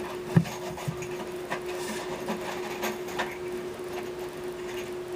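Handling noises inside a wooden subwoofer enclosure during the mounting of a subwoofer: one sharp knock about half a second in, then scattered light clicks and scrapes, over a steady hum.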